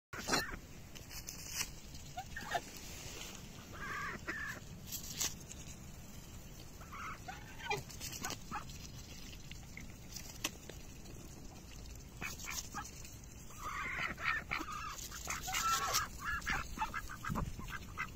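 Ducks and a goose pecking and tearing at napa cabbage leaves, their bills snapping and crunching on the leaves in scattered sharp clicks. Short honking and quacking calls come now and then, several bunched together about two-thirds of the way through.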